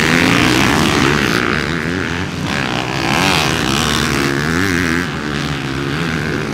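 Several dirt-bike engines running hard on a race track, their pitches rising and falling as the riders rev, shift and back off.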